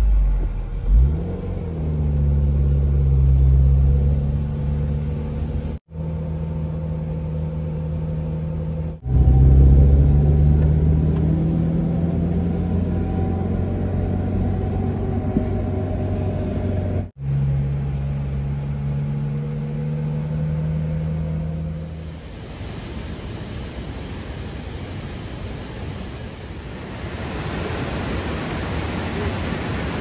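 Car engine running while driving, heard from inside an open-top convertible, its pitch rising as it accelerates a second or so in and again around ten seconds in, with abrupt breaks between shots. About eight seconds from the end it gives way to the steady rushing of a mountain stream over rocks.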